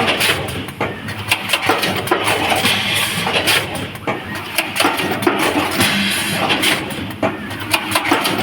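Automatic cable ferrule-insertion and marking machine running: a steady mechanical noise with many irregular clicks and knocks from its moving parts as it processes wires.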